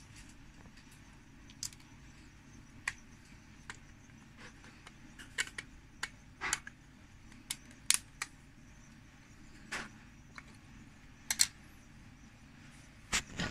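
Scattered sharp clicks and taps of hard plastic as a mesh nebulizer is put back together: the screwdriver tightening the mesh cap's small screw, and the clear medicine cup being fitted onto the nebulizer body. About a dozen clicks, irregularly spaced, a few of them louder past the middle.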